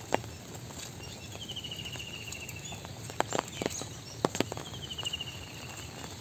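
Footsteps on a wet, muddy dirt road, with a cluster of sharper steps in the middle. A rapid trilled call that slides slightly down in pitch sounds twice, about three seconds apart.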